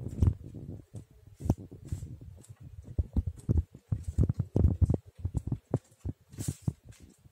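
Clear adhesive tape being handled and pressed down onto a wooden table edge: a run of irregular crinkles, taps and knocks, some sharp and fairly loud.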